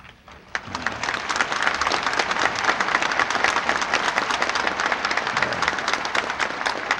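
Large audience applauding: dense clapping that starts about half a second in, holds steady and begins to die away near the end.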